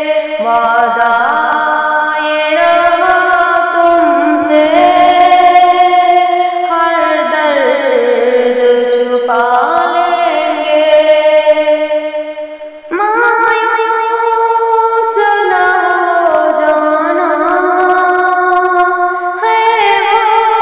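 A woman singing a ghazal with musical accompaniment, in long, ornamented melodic lines. The sound fades briefly about twelve seconds in and comes back abruptly a moment later.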